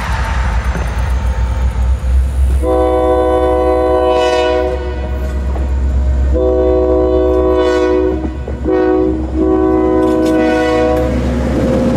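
Locomotive air horn on KLW SE32C #3200 sounding the grade-crossing signal: two long blasts, a short one and a long one, each a chord of several tones. Under it runs the low rumble of the passing diesel freight train.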